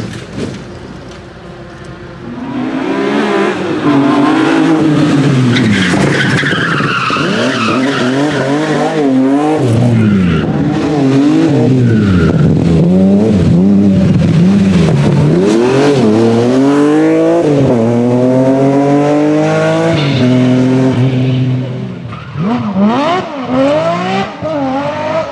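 BMW rally car engine driven hard, its pitch climbing and dropping again and again as it revs up through the gears and falls back on shifts and lifts. It comes up loud about two seconds in and drops away near the end, where there are a few short, sharp blips of revs.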